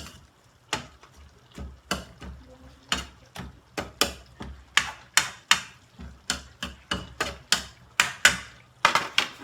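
Kitchen utensils knocking and clicking: a run of sharp, irregular knocks, about two a second.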